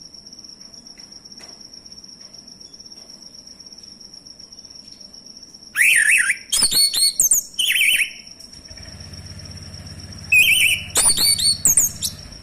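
Male orange-headed thrush singing: two bursts of quick, sweeping song notes, about six seconds in and again about ten seconds in, over a steady thin high tone.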